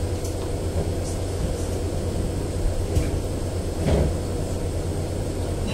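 Steady low rumble and hum of room noise, with a faint click about three seconds in and a short dull thump about four seconds in.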